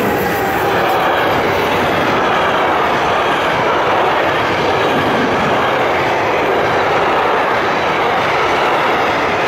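Freight train of wagons loaded with truck semitrailers rolling past close by behind BLS electric locomotives: a steady, loud noise of wheels running on the rails.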